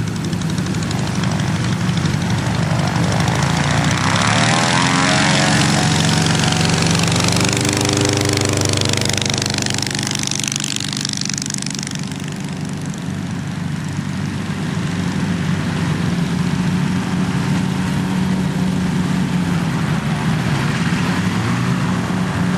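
Hummel CA2 ultralight's engine and propeller running at power through the takeoff run and climb-out: a steady engine drone whose pitch bends up and down as the plane moves past, then holds steady.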